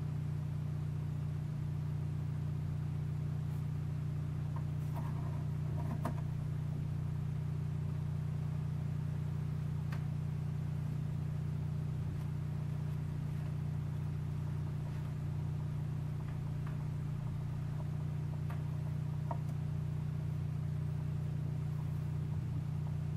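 Steady low mechanical hum of a motorized display turntable turning, with a few faint ticks.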